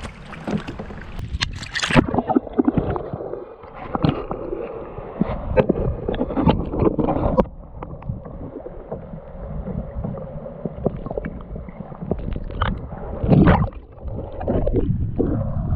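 Kayak paddles splashing and water sloshing around the kayak, with irregular knocks and low rumble.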